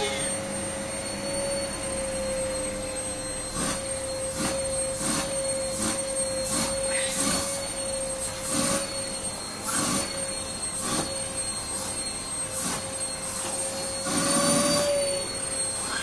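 Vacuum cleaner running with a steady motor whine. From a few seconds in, the suction swishes about once a second as the brush nozzle is stroked along the cat's fur.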